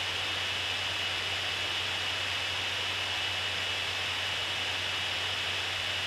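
Gigabyte P34G laptop's cooling fan running at high speed under a full video-rendering load. It makes a loud, steady rush of air with a thin high whine running through it.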